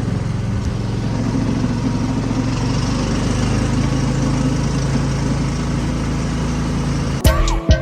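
ATV engine running steadily under way, with a continuous hum. Near the end it cuts abruptly to music with a hard drum beat.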